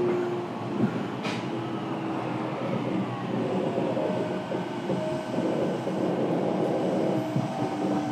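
Fukuoka City Subway 1000N series train running, heard from inside the car: steady wheel-and-rail noise with motor and gear hum whose tones shift in pitch, several falling over the first few seconds. A short sharp click comes about a second in.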